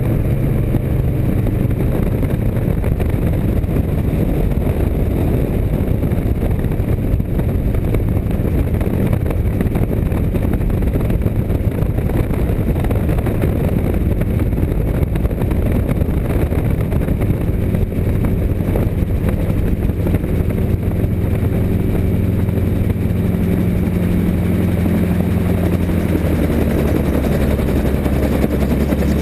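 Autogyro's engine and propeller running steadily through a landing approach, with wind rushing over the microphone in the open cockpit. The engine note shifts in the last few seconds as the gyroplane reaches the runway.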